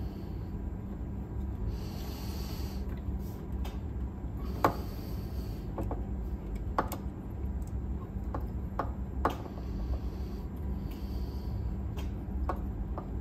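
Scattered small metallic clicks and taps of spacers and nuts being fitted onto cassette-deck potentiometer shafts, with a soft rustle of handling near the start, over a steady low hum. The sharpest click comes a little under five seconds in.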